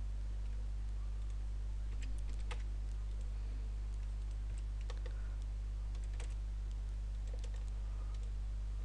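Scattered computer keyboard keystrokes and mouse clicks, a dozen or so isolated taps spread unevenly, over a steady low electrical hum.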